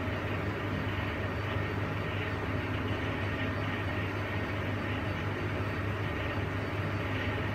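Steady mechanical hum with an even hiss over it, unchanging throughout.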